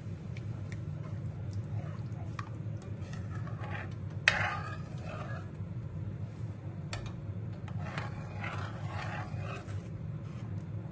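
Semolina halwa cooking in water in a metal kadai on a gas stove: a steady low rumble under a wooden spoon stirring and scraping the pan, with scattered light clicks. A sharp knock of the spoon against the pan about four seconds in is the loudest sound.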